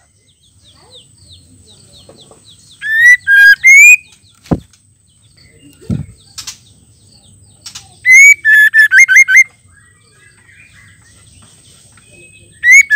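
Female white-rumped shama giving loud whistled phrases of rising notes: one about three seconds in, a quick run of notes about eight seconds in, and another starting near the end. Two soft knocks fall between the phrases.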